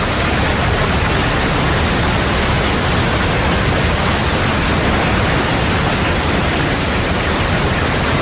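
A fast river swollen with meltwater rushing in a steady, loud wash of white water.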